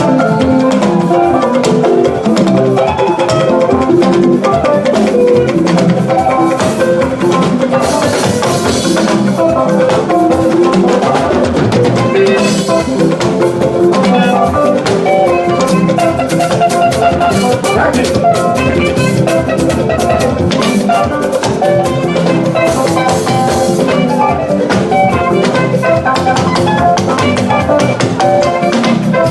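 Band music with drum kit playing an instrumental passage of a choir anthem: steady drum rhythm under sustained melodic instruments.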